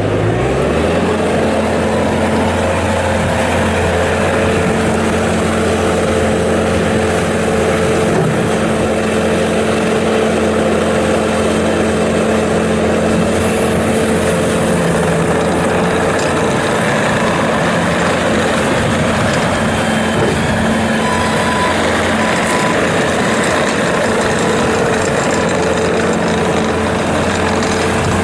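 2017 Bobcat T650 track loader's diesel engine revving up just after the start, then running steadily at high speed.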